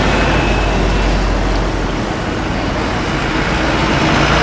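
Jet airliner engine noise: a loud, steady rush with a deep rumble, easing slightly midway and building again.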